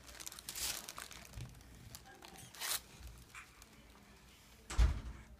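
Soft rustling and crinkling of paper as a baby shifts and handles a card, with one dull thump near the end.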